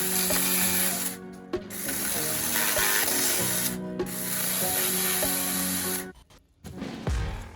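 Cordless mini chainsaw, a Makita-battery-compatible 4-inch model, cutting wood, with brief breaks in the cut and a heavy low thump near the end. Background music plays under it.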